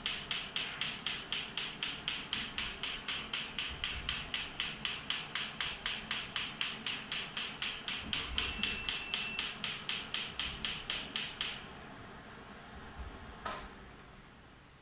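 HIEMT electromagnetic muscle-stimulation machine firing its magnetic pulses: an even train of sharp clicks, about four a second, that stops about twelve seconds in. Near the end comes one single switch click.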